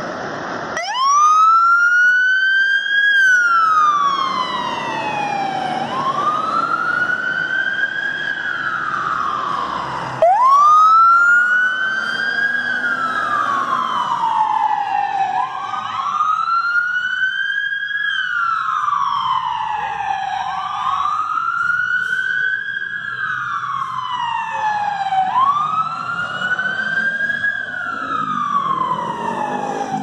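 Fire truck wail sirens. One siren starts about a second in, rising quickly and falling slowly in pitch about every five seconds, and gives a sharp restart around ten seconds. A second siren joins, the two wails overlapping out of step, over a low rumble of the trucks.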